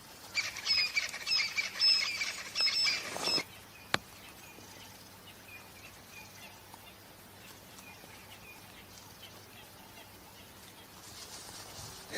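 A bird chirping over and over in a quick, even series of high notes for about three seconds, then stopping. A single sharp click follows about a second later, and then faint scattered chirps.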